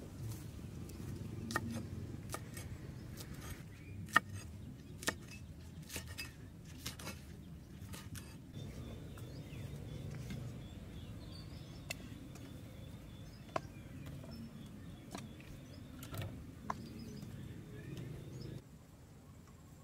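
Scattered sharp clicks and knocks of cooking gear handled on a wooden table, a cleaver and a metal wok, over a steady low outdoor background.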